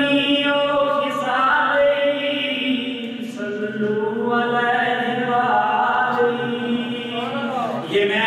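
A man singing a naat without instruments, drawing out long held notes that shift pitch every second or two, with a wavering run near the end.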